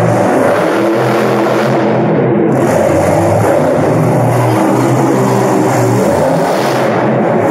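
Monster truck's supercharged V8 engine running loud as the truck drives across the dirt arena floor, its pitch rising and falling as the throttle comes on and off.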